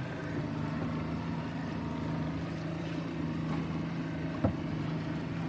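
Boat engine running steadily at an even pitch, with one sharp knock about four and a half seconds in.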